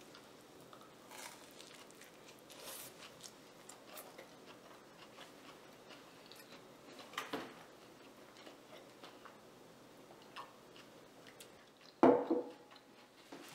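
Quiet room with faint scattered clicks and taps. About twelve seconds in, a dull knock as a glass of milk is picked up from a wooden table.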